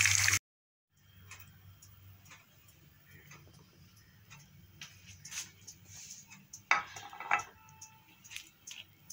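Hot oil sizzling with frying bread snacks for a moment, then cut off. After a short silence come faint scattered clicks and ticks, and two sharp knocks about seven seconds in, the second followed by a short ringing tone.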